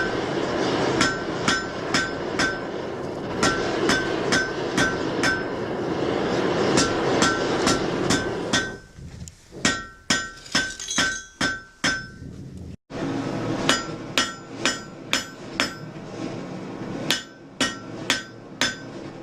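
Blacksmith's hammer striking iron on an anvil in quick runs of ringing blows with short pauses between them, forging a rose head nail. A steady rushing noise sits under the blows for the first eight seconds or so and then stops.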